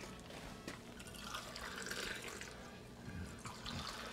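Hot cocoa tea being poured from a height back and forth between two cups to cool it: faint liquid splashing into an enamel mug, with a few light cup knocks.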